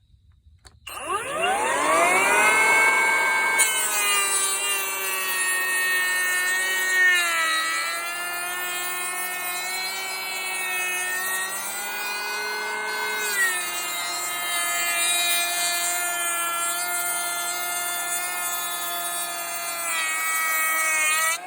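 Kobalt 24V cordless dual-blade planer starting about a second in, its motor whine rising as it spins up, then running and planing a 2x4 with a steady whine and cutting hiss. The pitch sags a few times as the blades take load. The motor begins to wind down right at the end.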